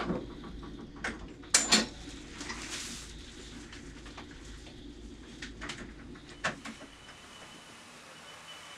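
Scattered light clicks and knocks of equipment being handled, the loudest about one and a half seconds in, over a steady low hum that drops away about seven seconds in.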